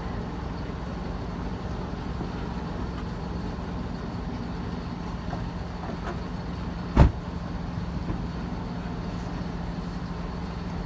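Steady hum of vehicles and machinery with a low drone, broken by one sharp, loud knock about seven seconds in.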